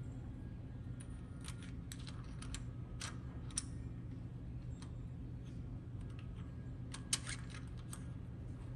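Light metal clicks and taps of small hardware being fitted by hand: a DRO scale's anchor pins going into its mounting links. The clicks come in a scattered cluster through the first few seconds and again about seven seconds in.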